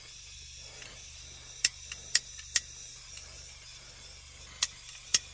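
Butane blow torch's push-button piezo igniter clicking sharply: three clicks about a second and a half in, two more near the end, over a faint steady hiss.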